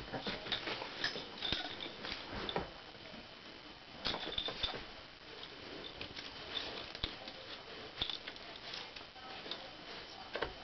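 Shetland sheepdog rubbing and rolling on a foam yoga mat: an irregular run of soft scuffs, scratches and taps from fur, paws and claws against the mat.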